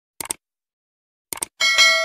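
Subscribe-button sound effects: two short mouse clicks a little over a second apart, then a bell-like notification ding near the end that rings on and fades.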